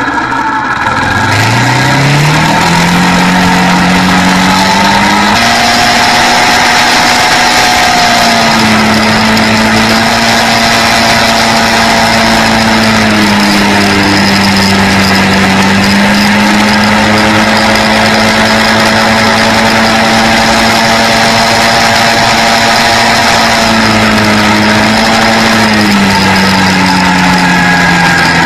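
Quad bike engine pulling away with its note rising steeply over the first couple of seconds, then running at a steady cruising speed, dipping slightly now and then and easing off near the end, over steady wind and road noise.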